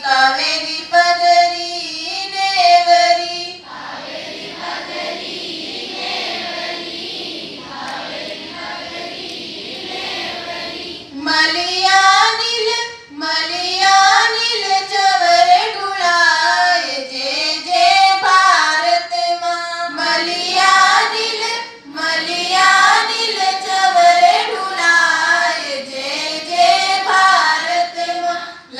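A group of schoolchildren singing a prayer together in unison. For several seconds, starting about four seconds in, the singing gives way to a quieter stretch, then the group takes the song up again.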